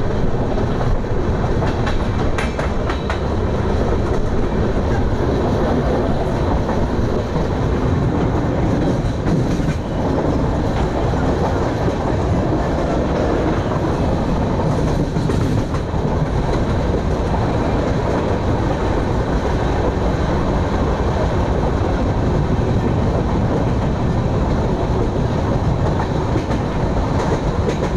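Express passenger train running on the line: a steady, unbroken noise of the coaches' wheels on the rails.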